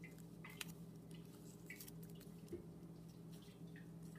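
Faint crinkling and rustling of a cardstock petal being bent and curled between the fingers: a few small, scattered crackles over a low steady hum.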